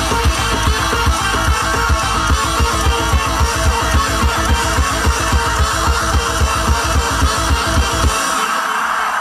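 Live electronic dance music played loud through a festival sound system, driven by a fast, steady kick drum of about two and a half beats a second under dense higher layers. The kick drops out about eight seconds in, leaving the upper layers.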